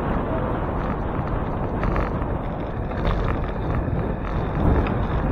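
Wind buffeting the microphone of a handlebar-mounted camera on a moving bicycle, a steady low rumble with tyre and road noise underneath.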